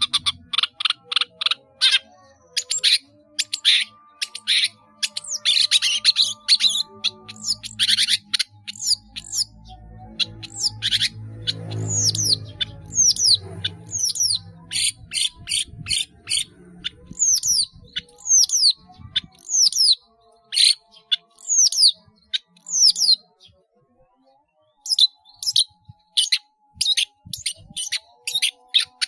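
Long-tailed shrike (cendet) singing a varied, mimicking song. It begins with rapid sharp chips and scratchy notes, then gives a string of repeated down-slurred whistles, pauses briefly, and resumes with quick chips.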